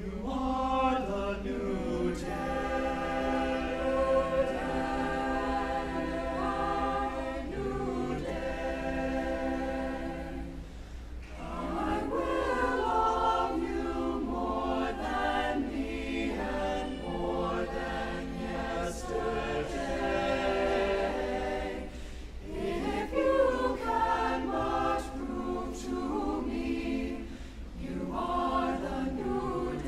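Mixed chamber choir singing a cappella, men's and women's voices in sustained chords, with brief breaks between phrases about eleven and twenty-two seconds in.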